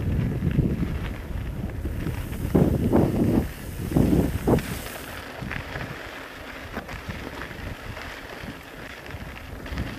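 Wind buffeting the microphone in a low rumble, with a few short louder sounds in the first half.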